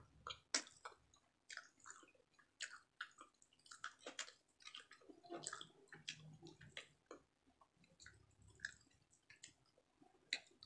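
Close-up eating sounds: a person chewing, with many irregular wet smacks and clicks of the mouth.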